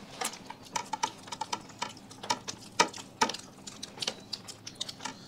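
Eating sounds: irregular light clicks and taps, several a second, of food being handled and mixed on plates.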